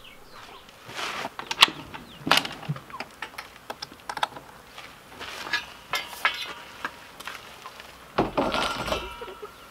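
Scattered light clicks and knocks as the coop's hinged end panel is handled. About eight seconds in, a long-handled tool scrapes across the corrugated vinyl roofing that forms the coop floor, the way bedding will be pushed out to clean it.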